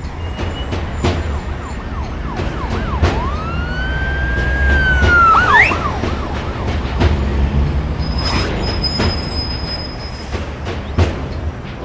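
Intro sound design: a steady low rumble with scattered sharp hits, and a siren-like wail that rises about three seconds in, holds, then dips and swoops up again near the middle.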